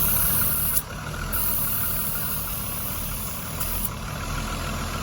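Toyota 7M-GTE turbocharged inline-six idling steadily. About a second in, the sound drops suddenly and stays lower as the vacuum leak is closed off and the idle comes back.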